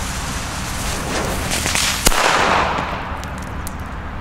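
A Masclet Faller, a hand-made Spanish firecracker, goes off with one sharp bang about two seconds in, followed by a short echoing decay.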